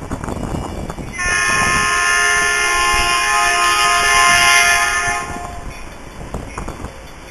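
Metrolink commuter train's air horn sounding one long blast of several notes at once, starting about a second in and lasting about four seconds. Wind buffets the microphone before and after it.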